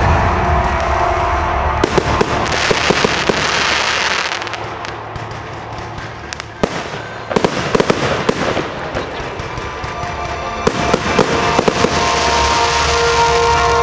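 Fireworks display: aerial shells bursting with sharp bangs over a steady crackle, easing off to a quieter stretch around the middle with a single loud crack, then building back into a dense run of bangs near the end.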